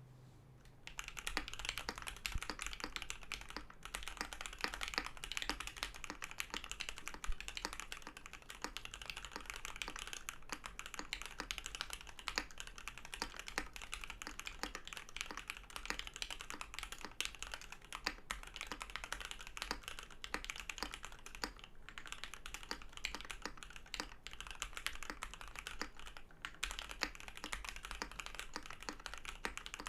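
Continuous fast typing on a Matrix Noah 65% custom mechanical keyboard with an aluminum plate, lubed Alpaca v2 linear switches and DCP PBT keycaps, starting about a second in. A steady low hum runs beneath the keystrokes.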